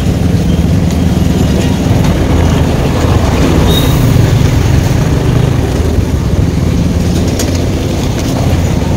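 Motorcycle riding along at a steady pace, its engine a low, even drone under a steady rushing noise.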